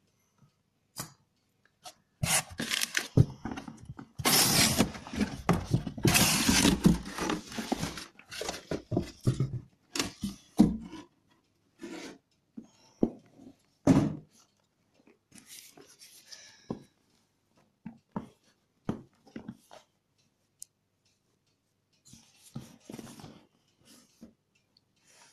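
Cardboard box and paper being handled: rustling, scraping and tearing, with a dense run of rustling in the first half, then scattered short rustles and taps.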